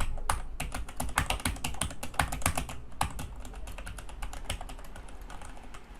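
Typing on a Logitech K840 mechanical keyboard with Romer-G switches: a quick, irregular run of key clicks that thins out after about three seconds.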